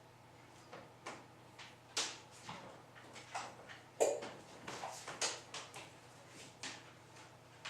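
Small plastic parts of a GSM alarm unit and its power supply being handled: irregular clicks and taps, with the loudest knock about four seconds in.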